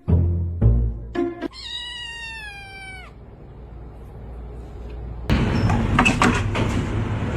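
A domestic cat's single long meow, held for about a second and a half and dropping in pitch at the end. Before it come a few short pitched notes, and about five seconds in, loud music with a steady bass starts.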